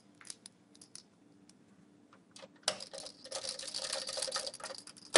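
A small screwdriver driving a mounting screw into the steel drive bay of a PC case to secure a CD-ROM drive: a few light metal clicks, then from about three seconds in a quick run of small clicks and rasping as the screw turns in, ending in a sharp click.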